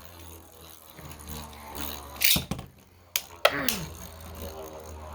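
Beyblade spinning tops ripped off their launchers with a short zipping hiss about two seconds in, then whirring in a plastic stadium, with sharp clacks as they collide a moment later and twice more about a second after that.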